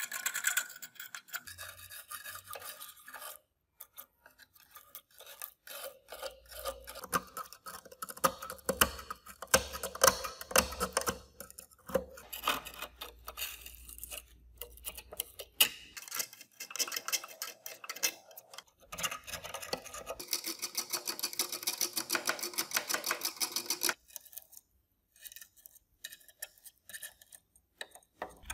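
Thin steel blade scraping and prying flaking paint and rust off the corroded iron body of an antique mechanical scale: a run of short metal-on-metal scrapes and clicks, with a denser, faster stretch of scraping a few seconds past the middle.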